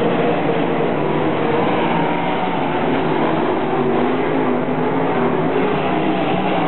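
Several RaceSaver 305 sprint cars' V8 engines running together around a dirt oval, a steady, continuous engine noise whose pitches waver slightly as the cars circle.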